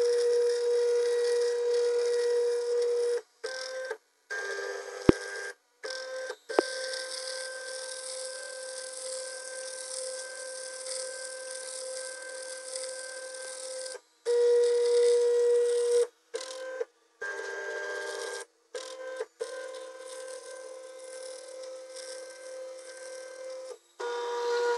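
Small CNC milling machine running, its spindle and cutter milling a round pocket in an aluminium block: a steady whining tone over a cutting hiss. It is louder for the first few seconds and again about halfway through, and several brief dead gaps cut the sound to silence.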